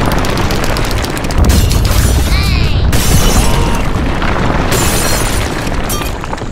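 Loud, sustained rumbling boom with crackling noise, like an explosion sound effect, fading out near the end.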